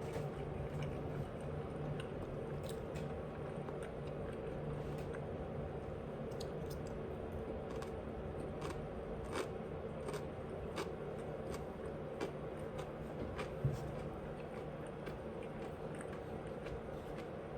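Close-miked chewing and biting: wet mouth clicks and smacks at irregular intervals as someone eats, over a steady low background hum.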